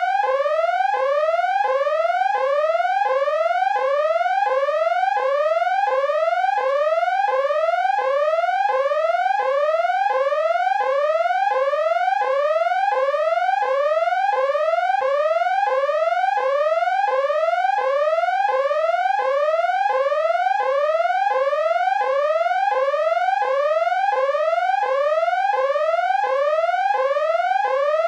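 Electronic danger alarm: a rising tone that sweeps upward about one and a half times a second, each sweep snapping back down to start again, repeating without a break.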